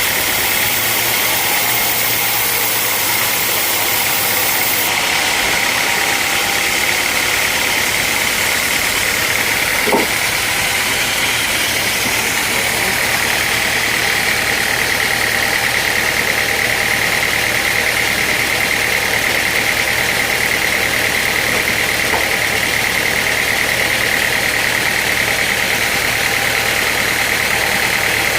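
Sawmill machinery running steadily: a loud, even noise with a high-pitched whine, and one short knock about ten seconds in.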